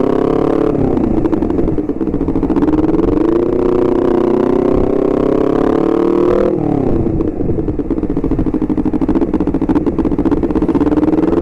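Honda CBR250RR parallel-twin engine under way. Its pitch dips, climbs and holds, then falls sharply about six and a half seconds in as the rider eases off or shifts, and rises again as it pulls.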